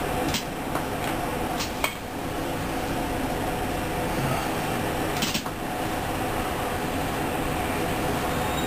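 Steady hum of a stationary light-rail vehicle's onboard equipment and ventilation, heard inside the driver's cab, with a few sharp clicks, the loudest about five seconds in.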